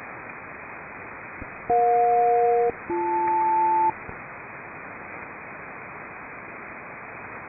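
Aircraft SELCAL selective-calling signal over HF single-sideband radio: two steady two-tone chords of about a second each, split by a brief gap, sent as a SELCAL check to set off the aircraft's call alert. A steady hiss of HF static runs underneath.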